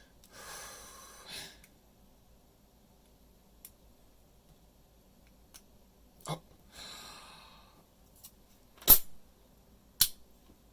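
Sharp, scattered clicks of lock-picking tools working in a padlock, the loudest about nine seconds in, with two long breathy exhales between them.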